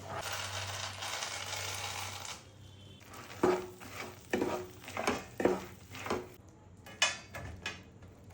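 Food sizzling as it is stirred in a pan with a spatula for about two seconds. Then comes a run of sharp clinks and knocks, about six of them, of the utensil against the pan.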